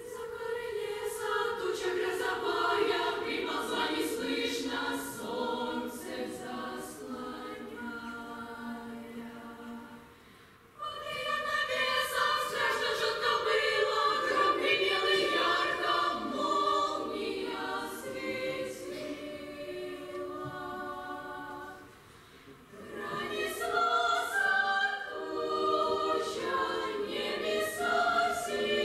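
A children's choir singing together in many voices, phrase by phrase, with two brief breaks between phrases, about ten seconds in and again about twenty-two seconds in.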